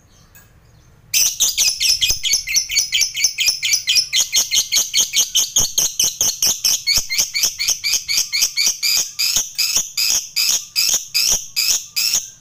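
Lovebird giving a long, rapid chattering trill (the 'ngekek panjang' prized in contest birds): sharp high-pitched notes repeated about five times a second for some eleven seconds without a break, starting abruptly about a second in and cutting off suddenly.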